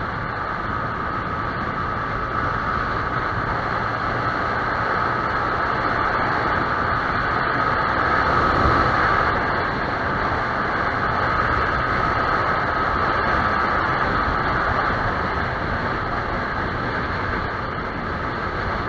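Yamaha YZF-R15 single-cylinder motorcycle riding along at a steady speed, its engine note under a steady rush of wind and road noise.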